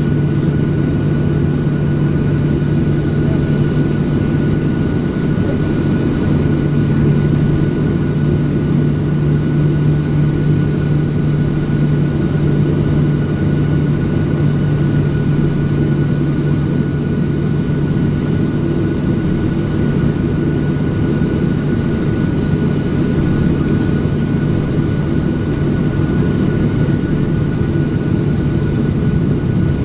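Boeing 737-700's CFM56-7B jet engines at idle before takeoff, heard inside the cabin as a steady drone with a low hum and a faint, even high whine.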